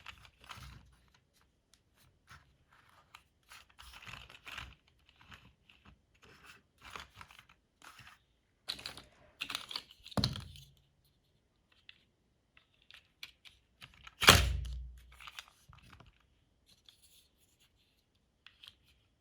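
Plastic LEGO bricks clicking and rattling as pieces are picked out and pressed together, in irregular bursts, with a louder knock a little past halfway and another, the loudest, about two-thirds of the way in.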